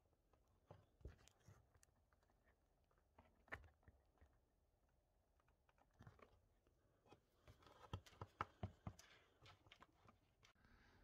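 Near silence with faint scattered clicks and rustles of hands handling a scooter's plastic body panel and wiring connectors, with a quick run of clicks about eight seconds in.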